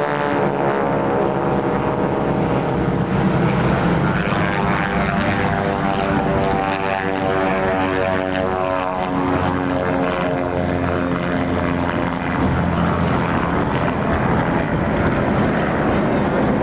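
Propeller-driven aerobatic planes flying overhead in formation, a steady engine drone whose pitch slowly falls as they pass.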